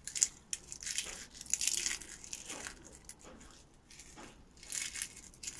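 Dried bay leaves being crushed and crumbled between the fingers: a dry, irregular crackling in spurts, heaviest in the first two seconds and again near the end.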